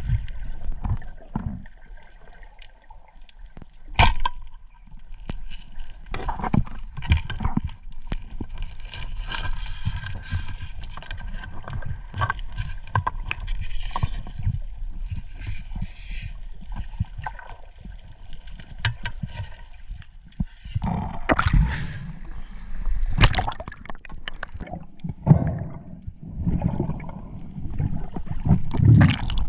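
Underwater sound as a diver spearfishing for cuttlefish moves through the water: muffled gurgling and sloshing, with a few sharp clicks or knocks, the loudest about four seconds in.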